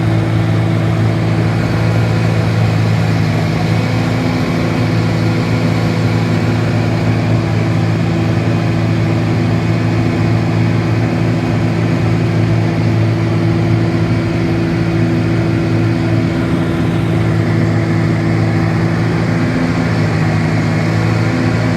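John Deere 650K crawler dozer's diesel engine running steadily and loudly, working under load while the dozer pushes and breaks up a packed pile.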